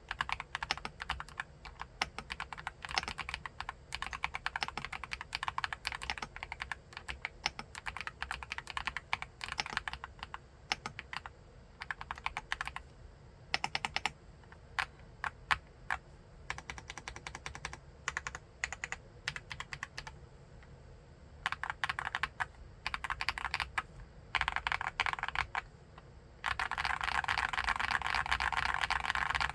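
Typing on an Akko SPR 75 mechanical keyboard with MMD Princess tactile switches. Dense keystrokes at first, then shorter runs of keypresses broken by brief pauses. Near the end comes a louder, unbroken stretch of about three seconds.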